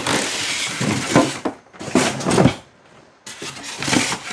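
Packaging being handled: several bursts of rustling and scraping, with a few light knocks.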